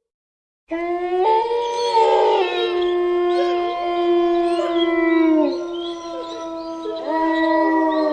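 Several wolves howling together in a chorus of overlapping long, held howls, after a brief silence; the howls fall in pitch at their ends about five seconds in and a new howl rises about seven seconds in.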